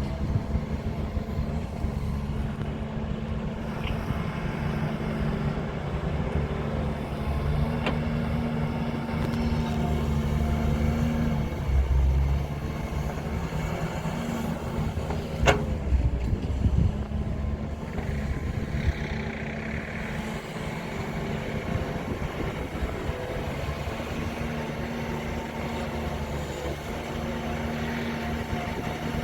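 Heavy diesel engine of a JCB backhoe loader running and working, its note changing several times as the load comes on and off. A few sharp knocks sound over it, the loudest about halfway through.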